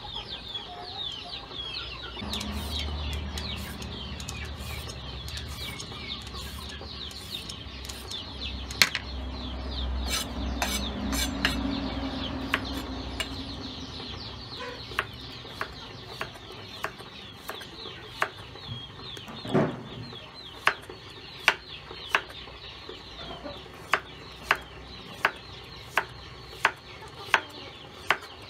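A cleaver knocking sharply on a wooden chopping block as a carrot is cut, striking about once every second or so in the second half. In the first half, steady chirping and a low rumble sit under the cutting.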